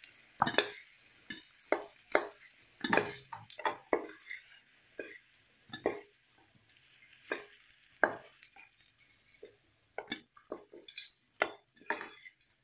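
Slotted metal spatula scraping and knocking against a kadai as fried pumpkin pieces are scooped out of hot oil and dropped into a steel bowl, in irregular clicks and knocks. A light sizzle of the oil lies under the first half and fades.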